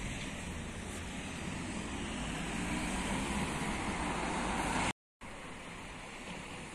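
Outdoor street noise: a steady rush of road traffic and wind on the microphone. It swells a little, cuts out abruptly for a moment about five seconds in, then goes on more quietly.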